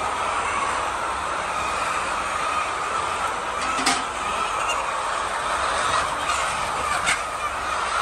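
A large flock of laying hens clucking and calling together in a steady, dense din. Two sharp clicks stand out, about four and seven seconds in.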